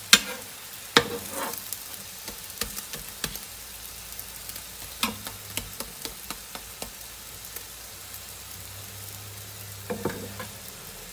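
Egg paratha frying in ghee in a pan, with a steady low sizzle. A slotted spatula presses and nudges it, clicking and scraping against the pan every second or so; the loudest clicks come near the start.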